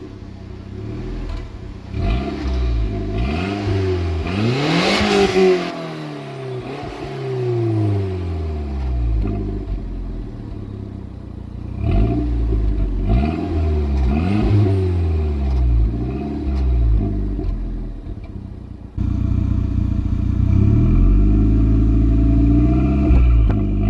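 Audi A3 8L's 1.8-litre turbocharged four-cylinder engine revved through its stock exhaust: a series of quick blips, each rising and falling in pitch, the biggest about five seconds in. About nineteen seconds in the sound turns suddenly louder and steadier, with one more blip near the end.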